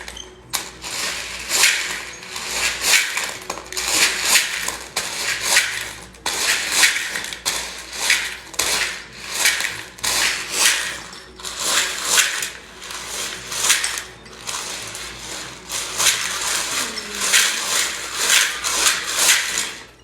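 Dried beans used as a sensory toy, rattling and pouring in repeated handfuls, about one or two rushes a second.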